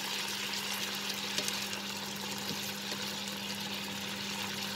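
Bacon, asparagus and carrot sizzling in hot bacon fat in a frying pan as they are stirred with a wooden spatula, with a few light spatula taps over a steady low hum.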